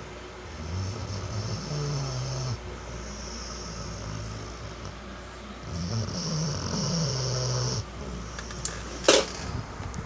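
Dog snoring loudly in its sleep: two long snores about five seconds apart, each a low rumble with a hiss on top. A single sharp click near the end.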